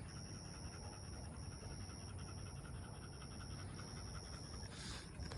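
Dog panting fast and evenly, faint.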